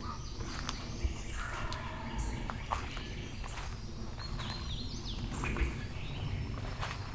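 Several songbirds singing in the woods: short chirps and quick rising and falling whistled phrases. A steady low rumble runs underneath, with a few sharp clicks.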